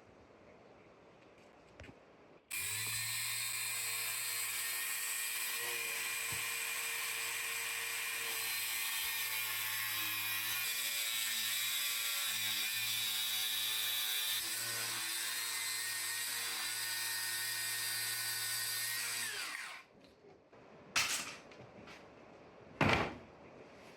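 An electric power tool runs steadily at full speed for about 17 seconds, then winds down as it is switched off. Two short knocks follow near the end.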